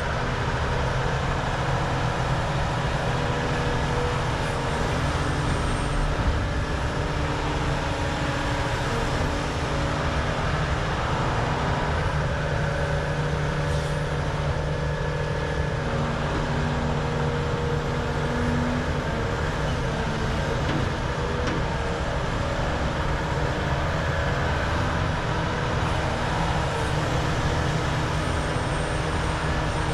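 Volvo EC550 excavator's large diesel engine running steadily under working load, its pitch shifting a little now and then.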